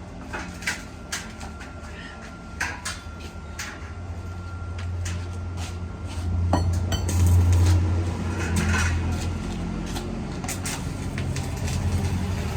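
Metal pieces clinking and knocking against each other in a string of separate sharp strikes, typical of steel frame parts being handled and set in place for welding. Under them a low hum swells in the middle and then eases.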